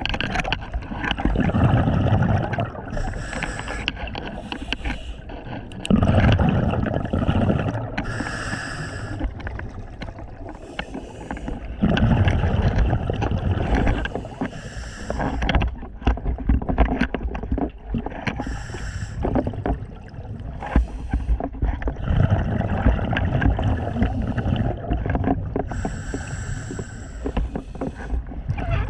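Scuba diver breathing underwater through a regulator: a short hiss on each inhale, then a longer low bubbling rumble of exhaled air, breath after breath.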